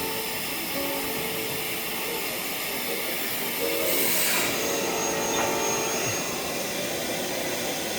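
Rebuilt central vacuum power unit with a new Lamb vacuum motor running, a steady rushing hiss of air drawn through its inlet during a suction-gauge test. The hiss briefly grows louder and brighter about halfway through.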